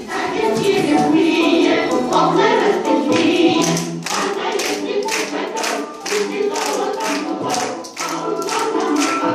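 A song with choral singing over music, with a steady beat of sharp strokes, about two a second, setting in about four seconds in.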